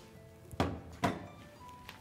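Two sharp knocks about half a second apart, from kitchenware being set down on a countertop, over quiet background music.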